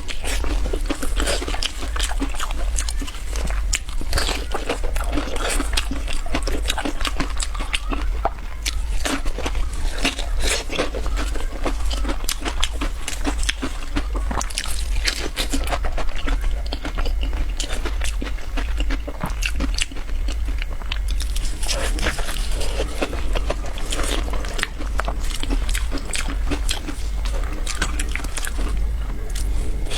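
Close-miked crunching bites and chewing of crisp pumpkin biscuits, a dense run of sharp crackles, over a steady low hum.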